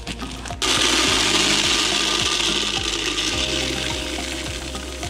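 Malt grains poured from a plastic bag into a plastic bucket: a dense rattling hiss of falling kernels that starts suddenly under a second in and slowly tapers off.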